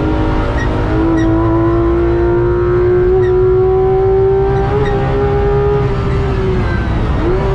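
Porsche 991.2 GT3 RS's naturally aspirated 4.0-litre flat-six under load, heard from inside the cabin. Its pitch climbs slowly and steadily for several seconds, then eases off. Near the end the revs dip sharply and come back up, over a steady rumble of road and tyre noise.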